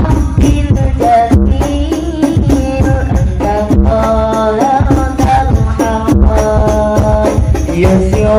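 Sholawat Al Banjari: Arabic devotional singing, voices in melismatic unison, over steady rhythmic strokes of hand-struck frame drums (rebana/terbang), amplified through microphones and a sound system.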